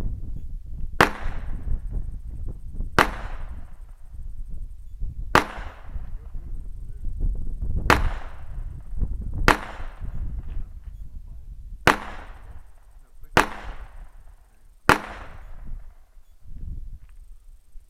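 Shotgun firing eight shots at uneven intervals of about one and a half to two and a half seconds. Each shot is a sharp crack trailing off in a short echo, over a low rumble.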